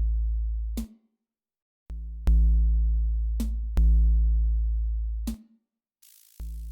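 Background electronic music with a heavy synthesizer bass and drum-machine beat, in long held bass notes that drop out twice for under a second.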